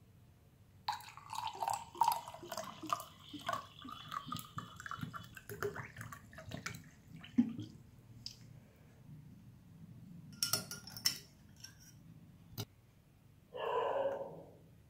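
Water poured from a plastic bottle into a drinking glass, splashing and gurgling for about six seconds as the glass fills. A few light clicks and knocks follow, then a brief muffled sound near the end.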